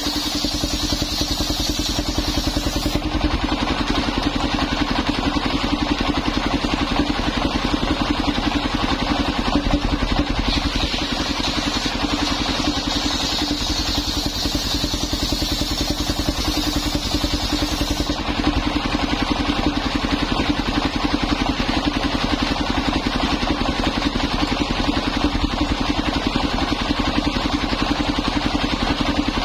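Portable circular sawmill with its belt-driven engine running steadily. The saw blade cuts through old coconut-palm timber for about the first three seconds and again for about eight seconds midway, each time adding a higher rushing sound over the engine.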